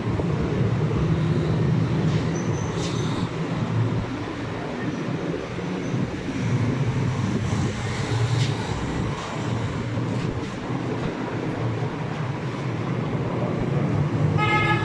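Steady low rumble of running engines, with a brief high-pitched tone near the end.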